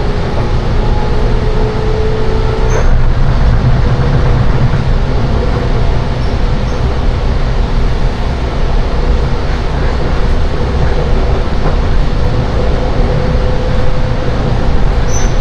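Seibu 10000 series Red Arrow limited express running at speed, heard from inside the passenger car: a loud, steady low rumble of wheels and car body with a humming tone over it. There is a single sharp knock about three seconds in.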